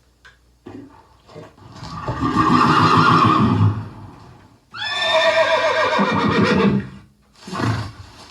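Horse neighing: two long whinnies, the second starting high and falling away in pitch, followed by a couple of short sounds near the end.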